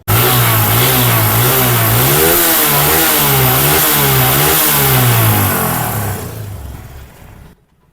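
TVS Apache RTR 160's single-cylinder four-stroke engine running while the throttle is blipped about five times, the note rising and falling, then dying away near the end. Under the revs is a heavy rattling, a 'jharjhar' noise that the mechanic puts down to a worn crank and connecting rod, in an engine also low on compression.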